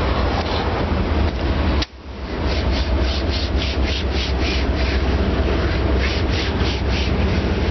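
Parts of an electronic air cleaner being washed: a steady rushing noise that cuts out briefly about two seconds in, then comes back with rhythmic scrubbing strokes, about three or four a second.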